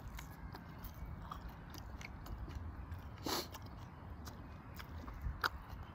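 A person chewing a mouthful of salad greens and seafood, with quiet wet mouth sounds and small clicks. There is one louder short sound about three seconds in.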